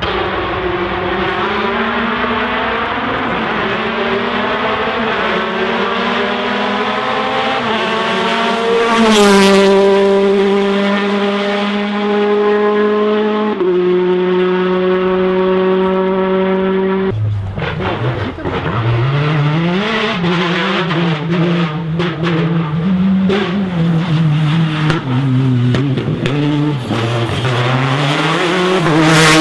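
Rally car engine at high revs, dropping in pitch twice as it shifts up. About halfway through the revs fall sharply, then rise and fall again and again with sharp crackles as the car works through a corner.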